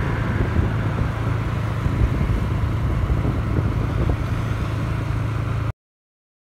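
Motorcycle running at a steady cruising speed with wind rushing over the microphone: a steady low hum under a rushing noise. It cuts off abruptly near the end, leaving silence.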